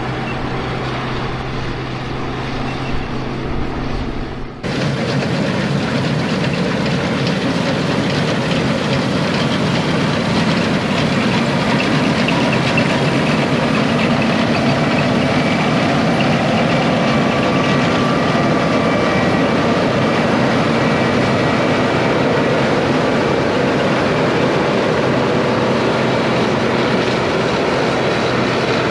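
International 1460 Axial Flow combine running with a steady mechanical drone while harvesting wheat. An abrupt cut about five seconds in switches to a louder, closer sound of the machine that holds steady.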